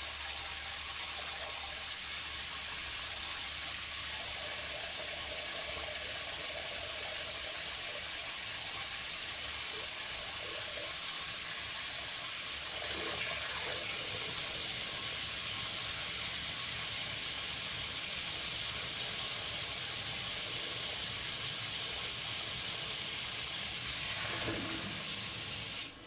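Water spraying steadily into a sailboat's bilge, a constant hiss, filling it to test the new float switch and bilge pump. It cuts off suddenly just before the end.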